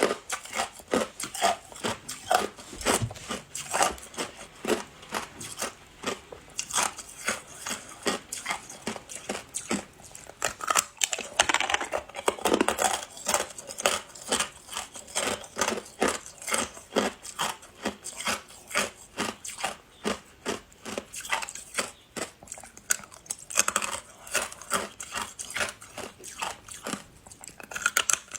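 A person biting and chewing hard ice close to the microphone: a continuous run of sharp crunches, several each second.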